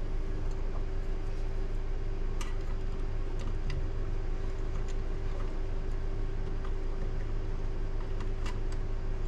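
Steady low machine hum, like a fan or motor running, with a few faint light clicks about two and a half, four and eight and a half seconds in.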